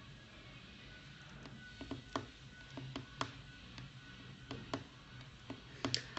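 Quiet room with a faint low hum and a dozen or so soft, irregularly spaced clicks, starting about a second and a half in.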